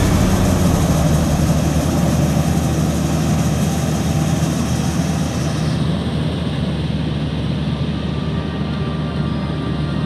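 Maxxi Bimo combine harvester's diesel engine running steadily as the machine crawls on its tracks through muddy paddy, a low drone that gradually fades as it moves away.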